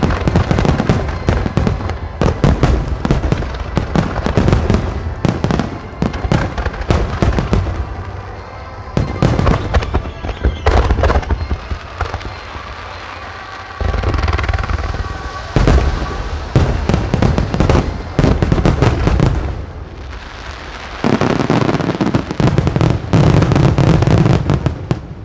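Starmine fireworks: a rapid barrage of aerial shells bursting in dense volleys of sharp bangs and crackles, with music playing underneath. The barrage eases off twice for a moment before the volleys resume.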